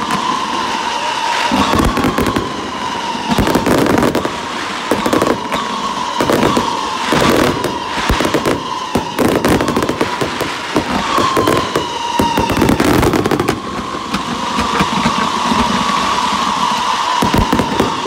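A 1.4G consumer fireworks display firing continuously: rapid launches and bursts of many shots, with crackling throughout. A whistling tone sits above the bangs, sliding slightly down in pitch over a second or two and then starting again, several times.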